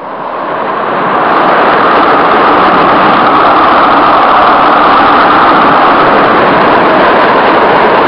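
Gale-force storm wind and heavy rain lashing trees: a loud, steady rushing noise that builds over the first second and then holds.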